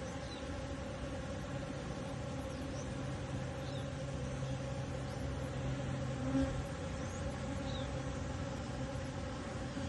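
Bees buzzing steadily, with a lower, stronger hum of a bee close by from about a second in until just before seven seconds. A few faint, short high chirps sound over it.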